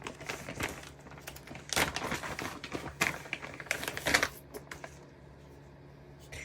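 A string of clicks and clacks from a 32-round ProMag extended magazine being handled and seated in a Taurus G3c 9mm pistol, with the loudest clacks about two, three and four seconds in.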